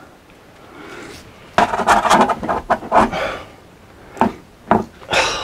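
Black electrical tape being pulled off its roll and wrapped around the end of a steel cable: a dense run of crackling and clicking about a second and a half in, then a few short, sharp tugs at tape that will not tear.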